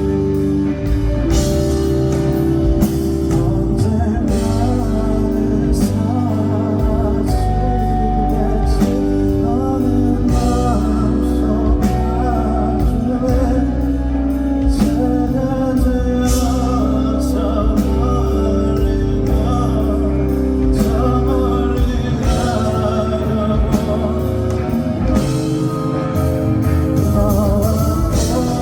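Live band music with singing, the song going on steadily.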